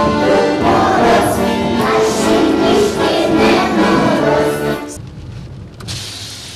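A group of small children singing a song together over a musical accompaniment with sustained notes. The music cuts off about five seconds in, leaving a quieter steady hiss.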